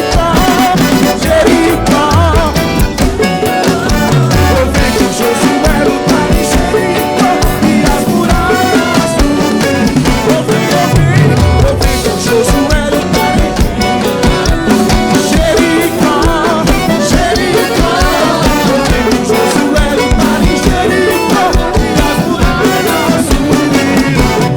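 A band playing an upbeat gospel song, with drum kit, bass and a melody line that bends in pitch over a steady, danceable beat.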